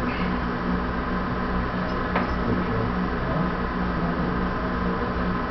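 HO scale freight cars rolling past over model railroad track, a steady rumble with a steady hum, and one sharp click about two seconds in.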